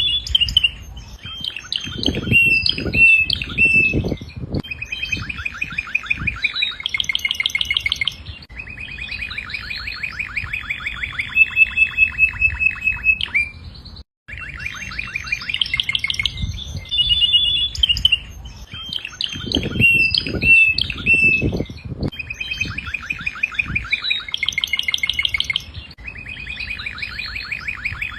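Domestic canary singing a long song of rapid trills and rolls with some held whistled notes. There is a brief break about halfway through, after which the same song repeats.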